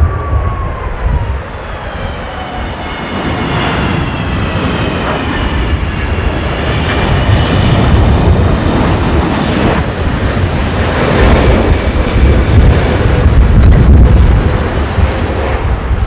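Jet engines of a Boeing 777-200ER airliner on final approach: a steady rumble with a whine of several high tones drifting slightly in pitch. The low rumble grows louder in the second half.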